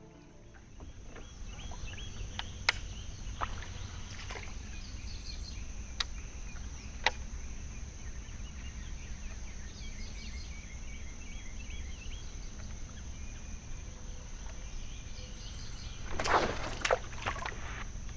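Outdoor lakeside ambience: a steady high insect drone over a low rumble, with birds chirping. A few sharp clicks come in the first half, and a short burst of louder noise follows near the end.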